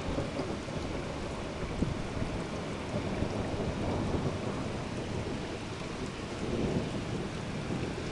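Steady rain with thunder rumbling during a thunderstorm, and one sharp click about two seconds in.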